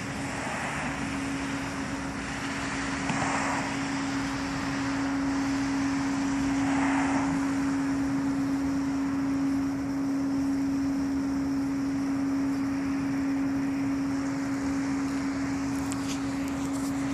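A steady, unexplained low hum held at one pitch, over a constant background rush, with a few soft swells of noise passing through.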